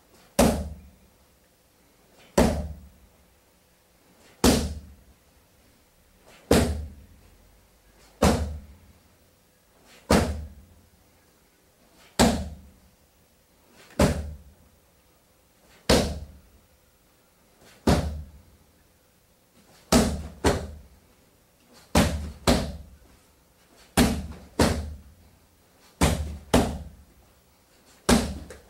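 Kyokushin round kicks landing on a hand-held kick shield with sharp slaps, about one every two seconds. From about two-thirds of the way in, the hits come in pairs about half a second apart.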